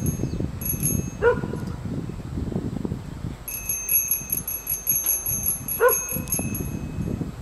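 A dog barks twice, once about a second in and again near the end, over wind rumbling on the microphone. In between comes a quick run of high electronic ringing pulses from a level-crossing warning bell.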